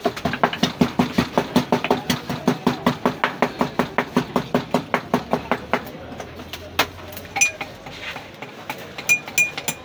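Wooden pestle pounding rapidly, about four to five strikes a second, stopping about six seconds in. A few sharp ringing clinks near the end, a metal spoon against a drinking glass.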